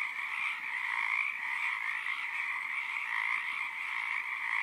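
A dense chorus of many frogs calling at once, a steady unbroken drone with no gaps.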